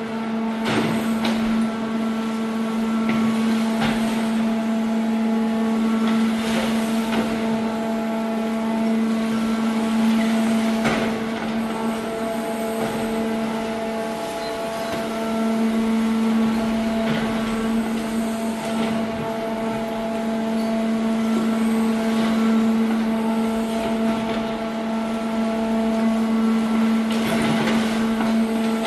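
Stationary electric-powered hydraulic grab machine working: a steady, pitched hum from its power unit, with scattered knocks and rustling as the grapple swings and bites into the garbage pile.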